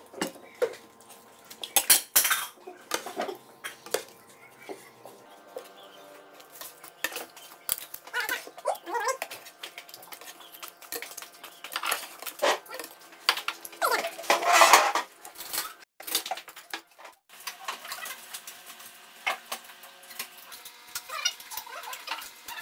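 Spoons clinking and scraping against ceramic bowls and plates while people eat, in scattered irregular clicks.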